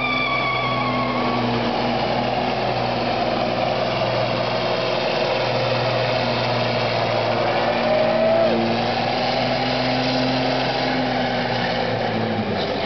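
Semi-tractor's diesel engine held at high revs through a burnout, its rear tyres spinning on the pavement. The engine note wavers slightly, with a brief rising whine about eight seconds in, and drops off near the end as the revs come down.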